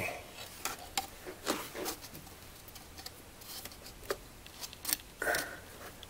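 Scattered light clicks, knocks and brief scrapes as a car heater blower motor with its plastic squirrel-cage fan is worked loose and pulled out of its housing.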